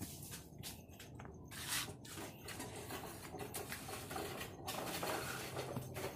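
Hand trowel scraping and rubbing across wet concrete in repeated strokes as the fresh surface is smoothed.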